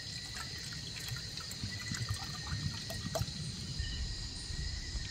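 Water being poured into a camping cook pot, an uneven trickle with small splashes, while insects trill steadily behind.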